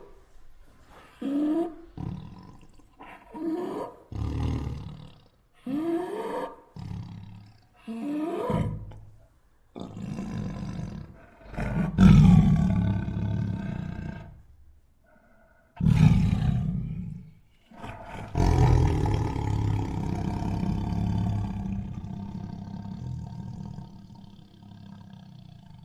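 Tiger calling: a run of short calls about once a second, each rising in pitch. Then come three longer, louder roars, the last drawn out and fading slowly.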